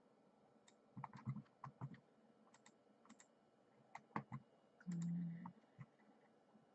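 Scattered quiet clicks from the keyboard and mouse of a computer being used, coming in small clusters. A short steady low tone lasts about half a second near the five-second mark.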